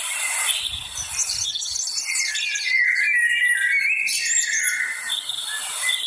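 Several birds singing and chirping at once, a dense chorus of high calls and whistles.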